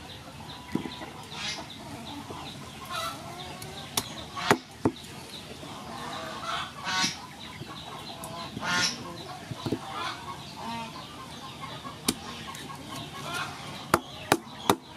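Cleaver chopping peeled sugar cane on a wooden chopping block: sharp knocks in small clusters, a few about four seconds in and several more near the end. Chickens cluck in between.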